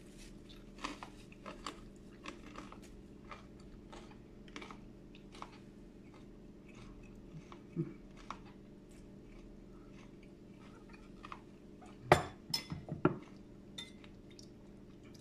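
Crunchy chewing of a crisp tostada, with faint small crackles. A little after twelve seconds in come a few sharp clinks of dishes.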